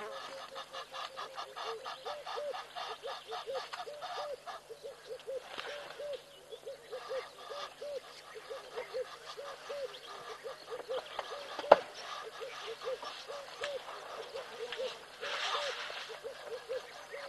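An animal calling over and over in short honk-like notes, about three a second. A single sharp click cuts in about two-thirds of the way through.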